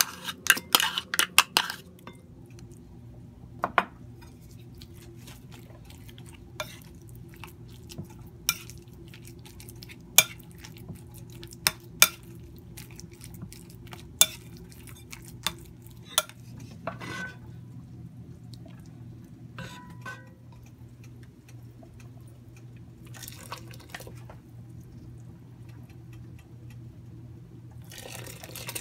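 A spoon clinking and scraping against a food-processor bowl and a ceramic bowl as ground pork is scraped out and stirred, in scattered sharp clinks that thin out after the first half, over a steady low hum. Near the end, a short rush of liquid being poured.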